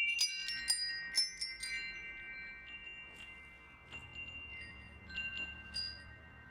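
Wind chimes: a quick flurry of metallic strikes in the first two seconds whose clear high tones ring on and overlap, then a few scattered strikes as the ringing slowly fades.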